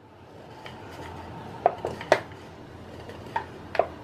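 Rolling pin rolling out dough on a round wooden board, with a soft steady rumble and a few light knocks as the pin and board shift.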